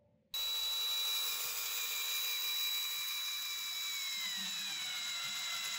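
Power drill-driver whining as it drives a wood screw through a plastic mount base into a wooden board. It starts suddenly just after the start, and its pitch falls about four seconds in as the screw draws tight.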